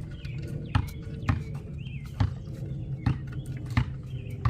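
Sharp metal clicks at irregular intervals of about half a second to a second, from a 14 mm wrench working the nut on the alternator's rear cable terminal. Faint high chirps and a steady low hum sit underneath.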